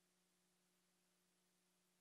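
Near silence: a faint steady hum over low hiss.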